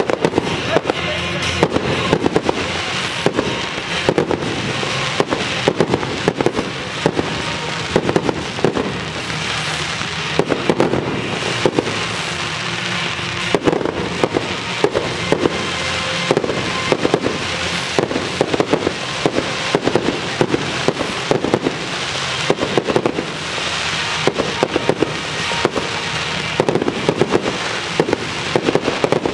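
Aerial fireworks display: shells launching and bursting one after another, many sharp bangs in quick succession with crackling in between, over music.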